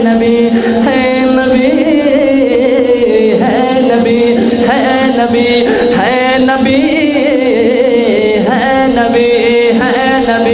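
Man chanting an Urdu naat, a devotional poem in praise of the Prophet, into a microphone: long, drawn-out melodic lines with held, wavering notes.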